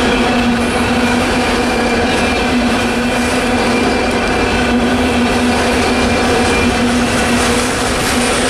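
Mixed freight train cars rolling past: a steady rumble of steel wheels on rail with a steady humming tone running through it.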